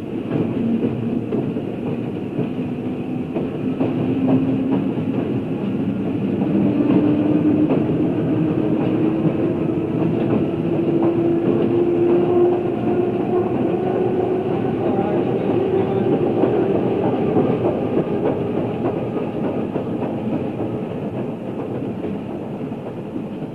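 Chicago, Aurora and Elgin electric interurban car running on the rails, its traction-motor whine rising steadily in pitch over the first dozen seconds as it picks up speed, then holding.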